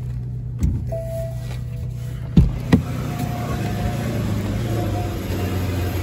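BMW 760's V12 engine idling steadily, with a dull knock under a second in and two sharp knocks about two and a half seconds in, after which the engine is heard more fully. The idle carries the faint thud-and-pop the owner hears as the engine coughing, which he ties to the ignition.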